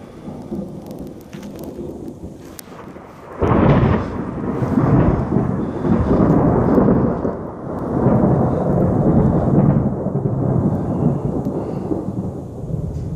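Thunder: a low distant rumble, then a sudden loud clap about three and a half seconds in that rolls on as a long rumble, swelling and fading.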